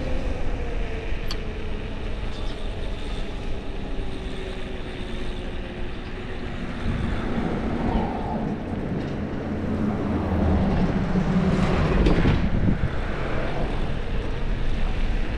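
Wind rumbling on an action camera's microphone while riding an e-bike, with a steady droning tone that slowly drops in pitch over the first several seconds.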